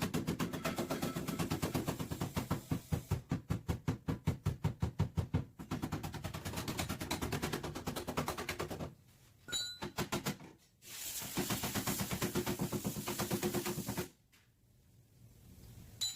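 Rapid, rhythmic hammering on car-body sheet metal during back-panel repair, in several runs of quick strikes with short pauses, ending about two seconds before the end.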